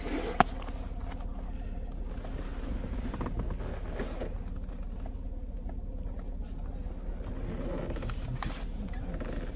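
Car engine running with a steady low hum, heard inside the cabin. A single sharp click about half a second in, then faint small ticks and rustles from a leather wallet being opened and handled.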